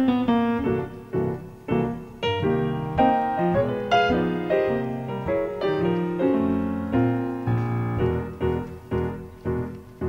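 Background music: a piano playing an instrumental passage of a song, with no singing, a steady stream of notes and chords.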